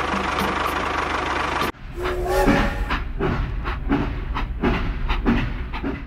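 Steam-train sound for a toy locomotive. It starts abruptly about two seconds in, replacing a steady mechanical din, and opens with a brief low whistle-like tone followed by chuffing strokes about two to three a second.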